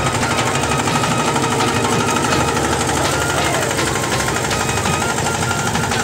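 Single-cylinder diesel engine of a walk-behind power tiller running steadily under load with a rapid chugging beat, as it ploughs wet paddy-field mud.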